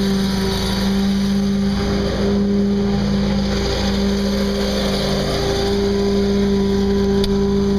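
Maintenance vehicle's engine running at a steady speed: a loud, constant drone with a strong, even hum.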